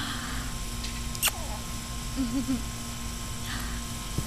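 Soft kissing smacks made with the lips. One sharp smack comes about a second in, with a brief low hum and soft breathy sounds between the smacks.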